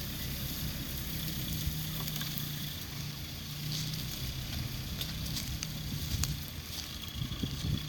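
Toyota Hilux pickup's engine running steadily at low speed as the truck crawls up a rough dirt track, a low hum heard from behind the truck.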